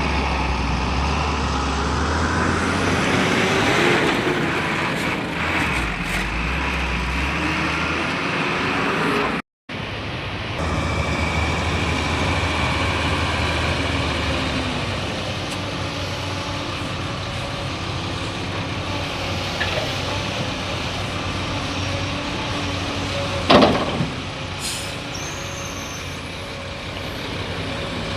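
Heavy diesel machinery running steadily as an excavator loads a dump truck. The sound cuts out briefly about a third of the way in, and a single short, loud burst comes about three quarters of the way through.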